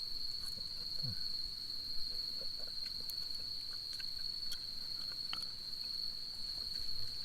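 Crickets trilling in one unbroken, steady high note, with a few faint scattered ticks.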